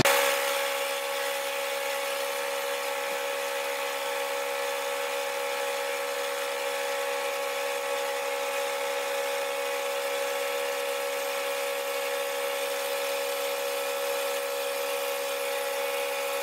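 Milling machine spindle running with the cutter taking a light pass along the edge of a metal plate as the table feeds: a steady machine hum with a constant tone.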